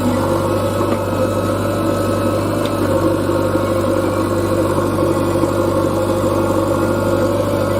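Diesel engine running steadily at an even speed, its low hum holding the same pitch throughout.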